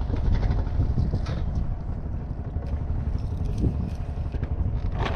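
Fishing boat's engine running with a steady low rumble; a short knock near the end.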